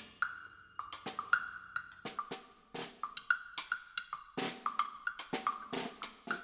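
Percussion trio playing: quick, uneven strikes on a wood block, mixed with snare and bass drum hits.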